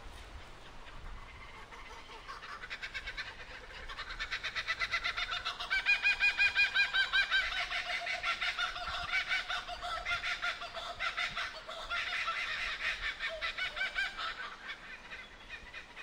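Laughing kookaburra giving its laughing call: a rapid run of repeated notes that builds up, is loudest about six seconds in, and tails off near the end.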